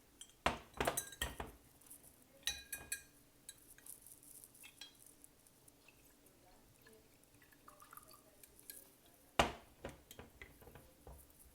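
Glass clinking as a small Turkish tea glass is handled: a few sharp clinks with a brief ring in the first three seconds, a quiet stretch, then a louder knock about nine seconds in.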